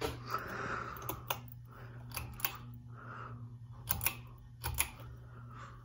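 Ceiling fan running with a steady low motor hum, with several sharp clicks scattered through, as from its pull-chain speed switch being worked.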